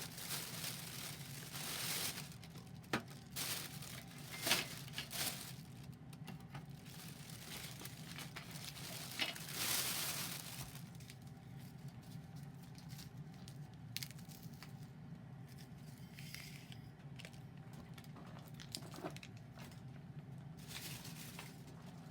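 Crinkling, rustling handling noises with several sharp snaps during the first half, then fainter scattered clicks and crackles over a steady low hum.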